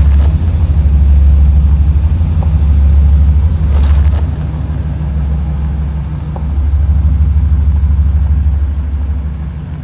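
Car on the move: a loud, steady low rumble of engine and road noise.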